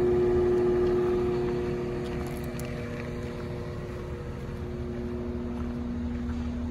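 Caterpillar 930M wheel loader's diesel engine idling steadily. A higher tone in the sound fades about two seconds in, while a lower steady hum carries on.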